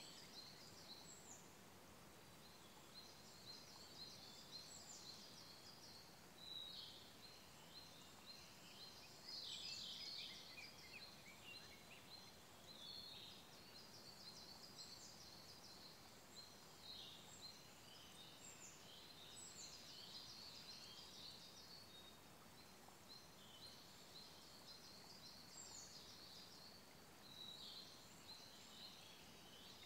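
Faint forest birdsong: high, rapid song phrases every few seconds from songbirds that include the Siberian blue robin, loudest about ten seconds in. Under it runs the faint steady rush of a small stream.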